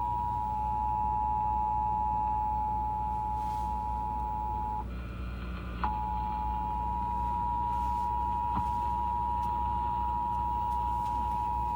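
Emergency alert two-tone attention signal (853 and 960 Hz sounded together) blaring steadily. It drops out for about a second midway, then resumes. Low car road noise runs underneath.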